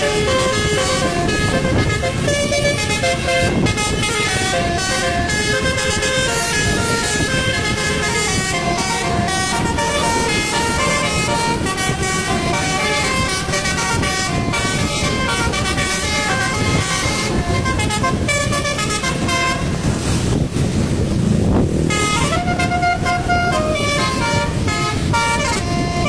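Basuri musical bus horn playing a fast tune of short stepped notes over the bus's running engine. The tune breaks off briefly about three-quarters of the way through, then comes back with a longer held note.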